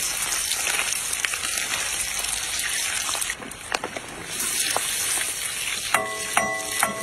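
Pink sugar syrup boiling and sizzling hard in a large wok as popcorn kernels are poured in and stirred with a metal spatula, with a few sharp clicks. Near the end a short pitched squeak sounds, broken into a few pieces.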